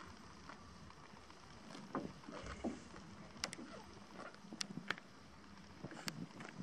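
Common warthog grazing close by: irregular tearing and snapping of grass, starting about two seconds in, with sharp clicks over a faint steady hiss.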